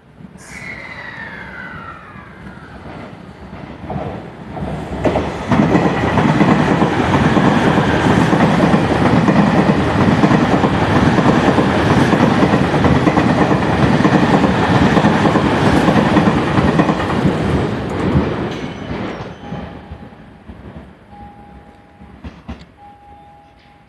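A train passing along the platform: the rumble and rush of wheels and cars builds up, stays loud for about twelve seconds, then fades away. A short falling tone sounds right at the start. Near the end a steady beep repeats several times.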